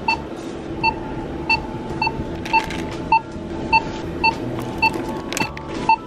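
Self-checkout Zebra barcode scanner beeping as each item is scanned: about ten short, identical high beeps, roughly two a second.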